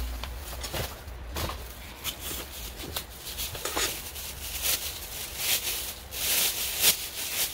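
Kitchen scissors snipping through the shell of a boiled snow crab leg, among scattered clicks and crackles of crab shell being handled. The cutting is densest and loudest near the end.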